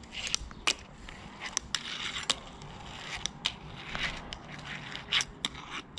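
A fingerboard ridden by fingers over the hard painted surfaces of a fingerboard park: small wheels rolling and the deck scraping along ledges, with about a dozen sharp, irregular clacks as the board pops, flips and lands.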